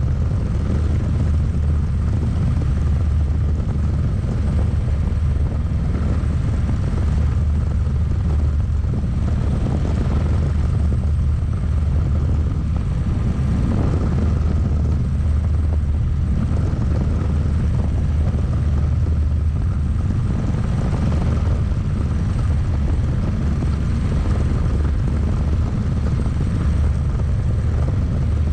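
Cockpit noise of a single-seat turbine-powered experimental helicopter in steady forward flight: a constant loud, low drone from the rotor and engine.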